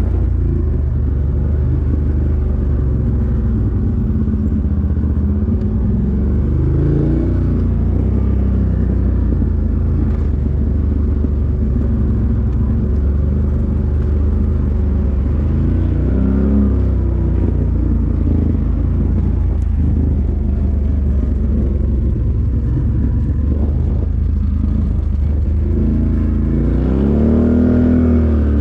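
ATV engine running with a steady low drone, the revs rising and falling a few times and swelling most strongly near the end.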